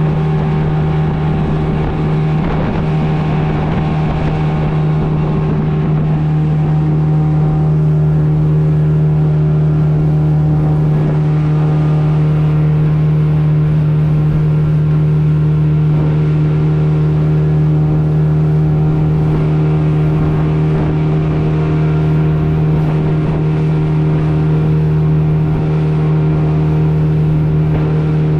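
Motorboat engine running at a steady cruising speed, a constant hum with water and spray noise from the hull cutting through the chop.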